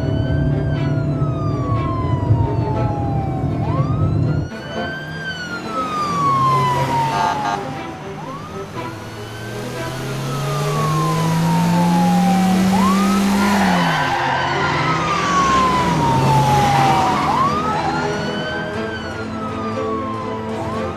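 Police car siren wailing, each cycle rising quickly and then falling slowly, repeating about every four seconds. Under it a vehicle's engine climbs steadily in pitch for a few seconds midway, then drops, and a rush of noise follows.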